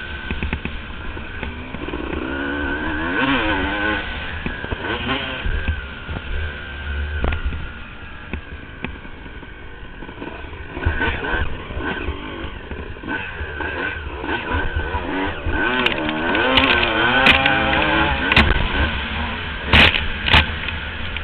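Motocross bike engine heard from on the bike, revving up and down again and again through acceleration and gear changes, under steady wind and ground rumble. Several sharp knocks come near the end, as thrown-up dirt strikes the camera.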